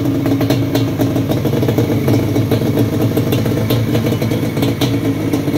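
Yamaha Banshee's two-stroke parallel-twin engine idling steadily, with irregular sharp ticks over the hum.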